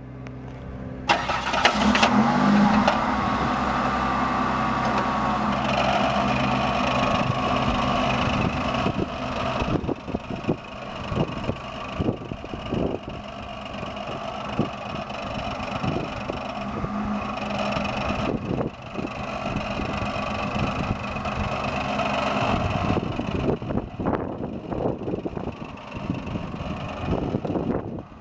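1990 Buick Reatta's 3.8-litre V6 engine starting about a second in, briefly revving, then running on with its level rising and falling.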